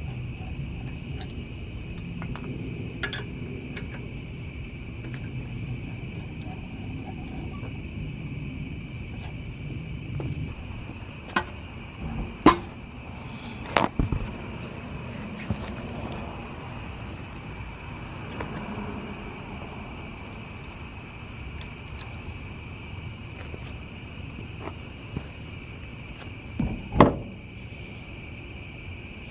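Crickets chirping steadily, with a few sharp knocks and clanks from the wheel being handled and fitted to the car, the loudest near the end.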